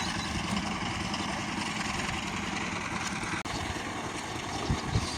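Engine of a concrete mixer machine running steadily while mixing concrete, with a low churning pulse and a few heavier low thumps near the end.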